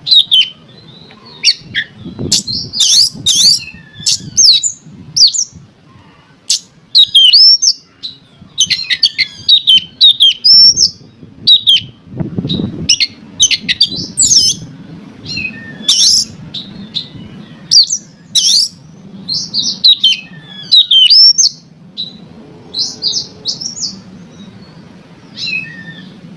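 Oriental magpie-robin (kacer) singing loudly: a rapid, varied run of sharp chirps and clear whistles in short phrases with brief pauses. This is the agitated, challenging kind of song used as a lure to provoke another magpie-robin into singing.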